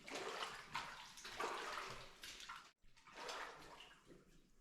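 Footsteps splashing through shallow standing water on a tunnel floor, a wet slosh with each step at walking pace; the sound cuts out for an instant a little past halfway.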